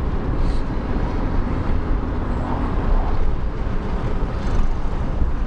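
Steady car cabin noise while driving with the windows partly open: a low rumble of wind, tyres and engine.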